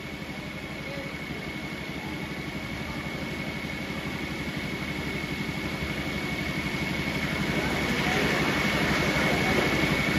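A steady, fast-pulsing engine-like hum with a thin high whine over it, growing slightly louder toward the end.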